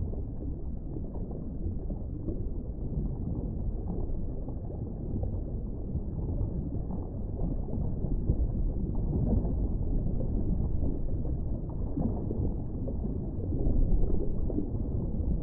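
Steady low rumbling noise with no distinct events, growing a little louder toward the end.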